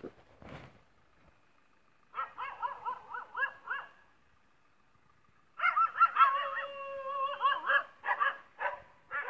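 Stray dogs whining in high, wavering cries, in two spells: a softer one about two seconds in and a louder, longer one from about halfway, breaking into short yelps near the end.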